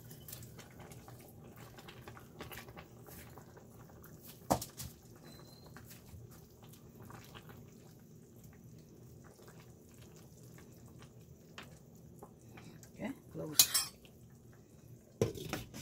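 Metal ladle and ceramic bowl clinking against a stainless steel pot of soup as sliced bitter melon is tipped in and stirred. A sharp knock comes about four and a half seconds in, and a quick run of louder clinks near the end.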